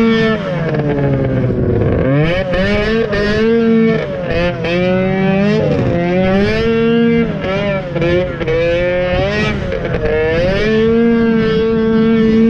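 Snowmobile engine heard from on board, revving up and down as the throttle is eased and opened again, its pitch dropping and climbing every second or two. It holds a steady high pitch at the start and again for the last couple of seconds.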